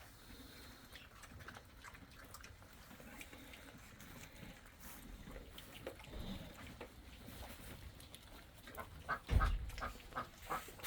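Farm animals calling faintly, then a quick run of short calls and a low thump about nine seconds in.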